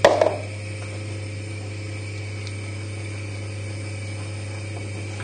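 A steady low mechanical hum, with a short louder sound right at the start.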